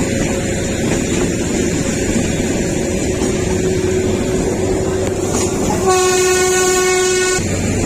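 Kalka–Shimla narrow-gauge toy train running with a steady rumble. Its horn sounds once near the end, held for about a second and a half.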